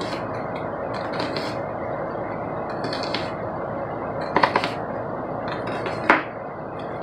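Chef's knife dicing a white onion on a wooden cutting board: a scattering of short chopping knocks, the loudest about six seconds in, over a steady background hum.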